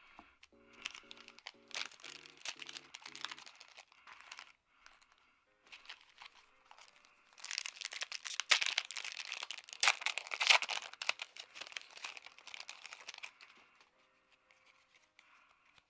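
Foil booster pack wrapper crinkling and tearing as it is opened, loudest for several seconds in the middle. Soft background music with short notes plays in the first few seconds.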